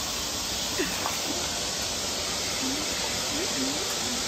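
A steady, even hiss, with a few faint, short murmured voice sounds about a second in and again in the second half.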